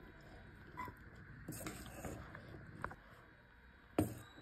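Steel spoon scooping crumbly puttu in a stainless-steel bowl: faint scraping and soft taps, with a sharper clink of spoon on steel about four seconds in.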